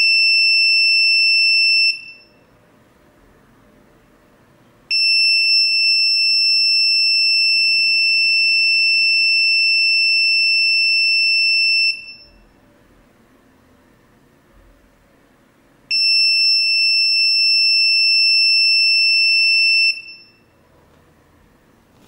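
Passive piezo buzzer of a DIY smoke detector sounding a steady high-pitched alarm tone in three long stretches, about two, seven and four seconds, with quiet gaps between. It is the alarm triggered when the MQ-3 gas sensor detects smoke.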